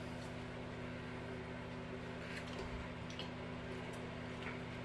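Steady electric hum of a fan running, with a few faint soft clicks and smacks of people eating rice and curry by hand from metal plates.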